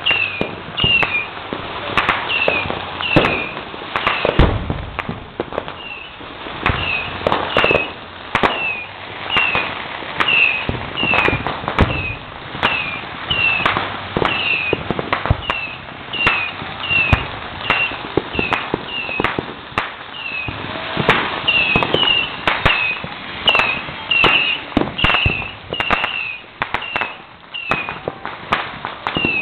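Firecrackers and fireworks going off all around: a dense, irregular scatter of sharp bangs and cracks. Over them, a short high chirp repeats about every half second to a second.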